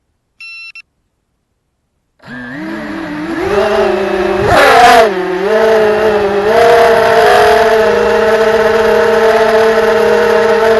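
A few short electronic beeps, then an FPV quadcopter's motors spin up about two seconds later: several whining pitches that shift up and down together, rise to a loud surge, then settle into a steady whine.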